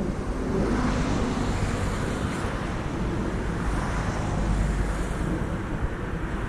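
Backhoe's diesel engine running steadily under load, with wind buffeting the microphone.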